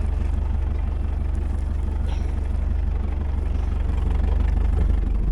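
A motor vehicle's engine running steadily, a low even rumble with a fast regular pulse, heard from on or in the vehicle.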